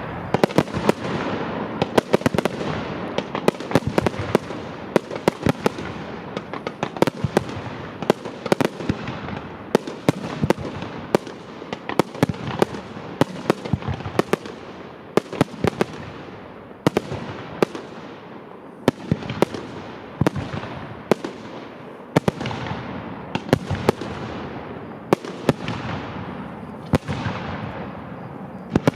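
Aerial fireworks display: a dense, irregular string of sharp bangs from bursting shells, often several a second, over a continuous noisy wash from the ongoing barrage.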